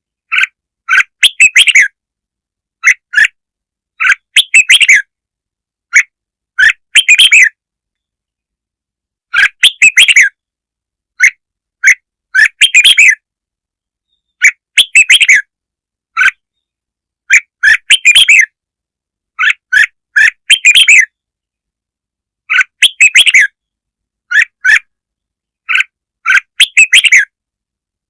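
Red-whiskered bulbul song: short, bright, warbling phrases repeated every one to three seconds, with complete silence between them, as played to lure wild birds.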